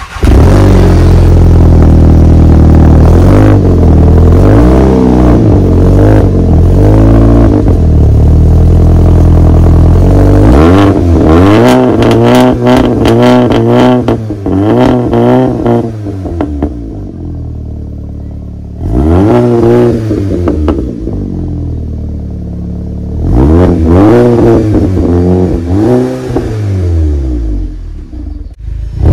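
Exhaust of a VW Golf GTI Performance's turbocharged 2.0-litre four-cylinder, heard at the tailpipe while the parked car is revved again and again in short blips, falling back to idle between them. In the middle of the run the rev blips come quickly, with sharp crackles as the revs drop.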